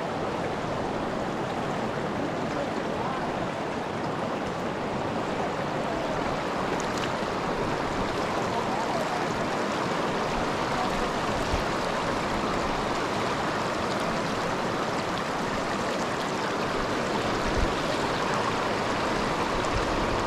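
A fast, clear creek rushing steadily over rocks and around boulders.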